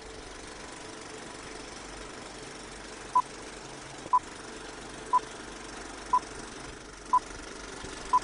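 Film-leader countdown sound effect: a film projector running steadily, with a short high beep once a second from about three seconds in, six beeps in all.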